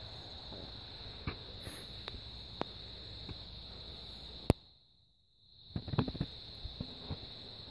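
Steady high chirring of crickets in a night-time insect chorus, with scattered faint ticks. About four and a half seconds in there is one sharp loud click, the sound cuts out for about a second, then comes back with a short cluster of small knocks and rustles.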